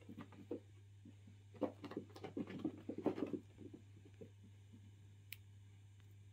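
Ragdoll kitten's paws thumping and scrabbling on carpet in a quick flurry of soft footfalls as it pounces and runs, lasting about two seconds near the middle. A low steady hum sits underneath, and there is a single sharp click near the end.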